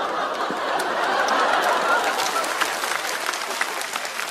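Studio audience laughing and applauding in reaction to a joke, the clapping growing more distinct toward the end.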